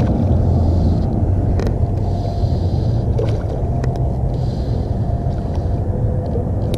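A steady low rumble, with a few light clicks as the fly line is handled.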